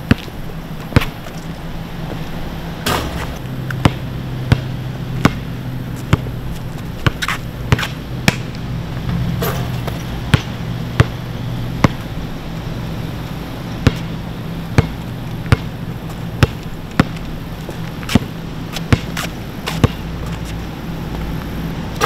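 Basketball dribbled on an asphalt court: sharp bounces roughly one or two a second, with brief pauses between runs, over a low steady hum.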